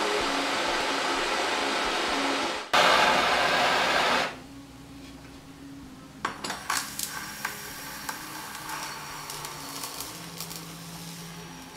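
Handheld butane torch flame hissing steadily, stopping about four seconds in. Then a series of sharp clicks and small crackles as the heated steel roller is pressed onto a computer monitor's plastic.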